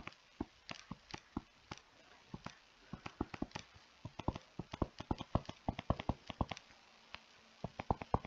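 Stylus tapping and clicking against a tablet screen during handwriting, a string of sharp, irregular ticks that come sparsely at first and then in quick clusters from about three seconds in.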